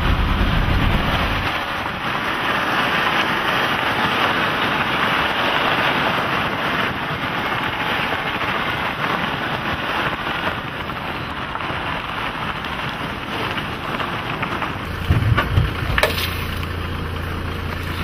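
Steady rushing rumble of a vehicle driving along a rough dirt mountain track, with tyre and road noise. Near the end a low engine hum of an idling vehicle comes in, with a few sharp cracks.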